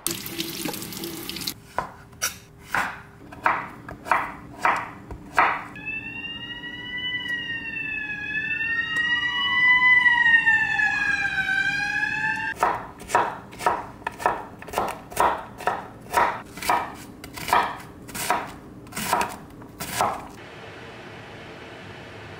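Chef's knife chopping zucchini on a wooden cutting board, steady knocks about one and a half a second, in two runs. Between the runs, for about six seconds, a siren wails, rising and falling in several crossing tones; it is the loudest sound and stops abruptly.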